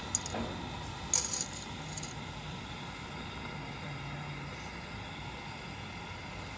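Dry spaghetti being lowered into a pot of boiling water, the stiff strands clicking against the metal rim: a few sharp metallic clicks in the first two seconds, the loudest about a second in, over a steady low hiss.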